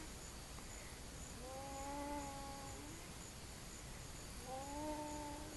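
A young child's noisy breathing with stridor: two drawn-out, high-pitched crowing breaths, each about a second and a half, the sign of an airway narrowed by croup.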